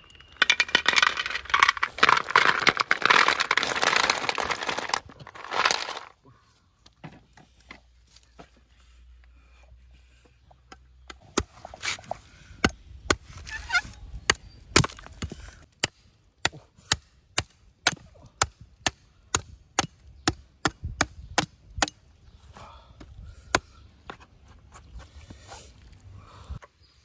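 Snail shells poured from a woven basket into a metal wok, a dense clattering rattle for about six seconds. Later a machete chops into a green coconut, a run of sharp strikes about two a second, then quieter cutting at the husk.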